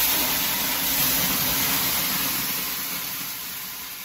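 Water thrown onto the hot rocks of a sauna stove, hissing loudly into steam (löyly). The hiss starts suddenly and slowly fades.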